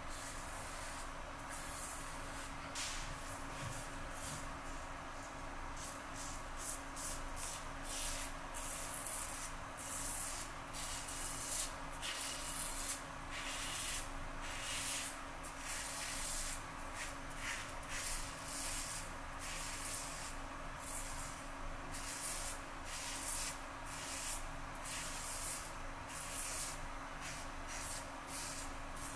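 Merkur 34G double-edge safety razor with a Rapira Platinum Lux blade scraping through stubble in short, irregular strokes, about one or two a second.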